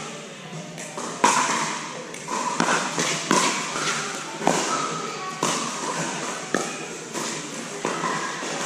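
Pickleball paddles striking a plastic pickleball back and forth in a doubles rally: sharp pops about once a second, in a large indoor hall.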